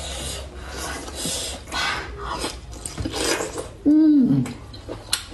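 Close-up wet chewing and sucking of braised pork intestine, in irregular smacks. About four seconds in comes a loud, short hum from closed lips that falls in pitch.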